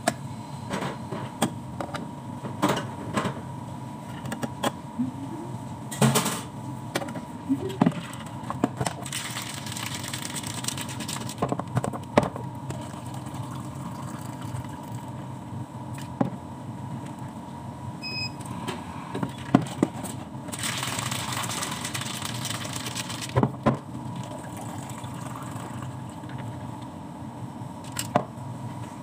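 Bubble-tea making at a counter: a metal bar spoon clinking against plastic shakers, cups and shakers knocked down on the counter, and tea poured into a cup. There are two stretches of hissing noise a few seconds long, over a steady hum of shop equipment.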